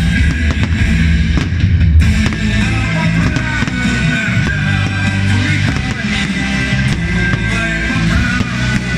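Loud rock music with a heavy low end, with scattered firework bangs and crackles mixed in under it.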